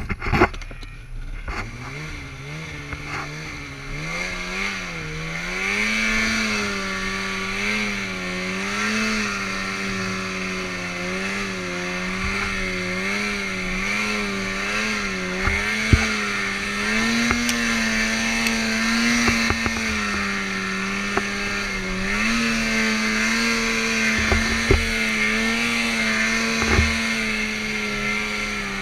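Snowmobile engine running under throttle through deep snow. Its pitch climbs over the first few seconds, then rises and falls as the throttle changes, with a few sharp knocks from the sled along the way.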